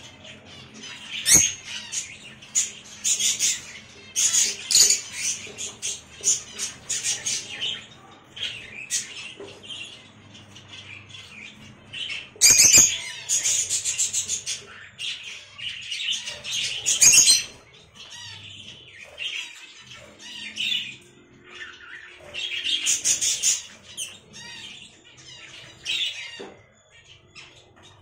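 Peach-faced lovebirds squawking and chirping in repeated bursts of shrill, chattering calls, with a few sharp clicks among them.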